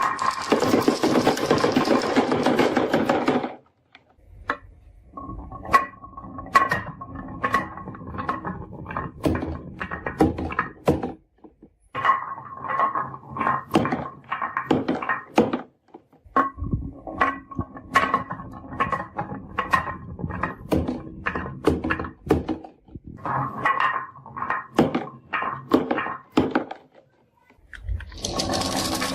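A small motor whirs steadily for the first few seconds and cuts out, then marbles clatter down a wooden marble run: many quick sharp clicks and knocks with a light ringing, in several runs broken by short pauses.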